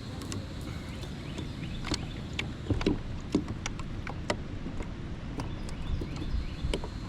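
Irregular light clicks and a few sharper knocks, with a cluster of louder ones about three seconds in, from handling on and against a kayak. A steady low rumble runs underneath.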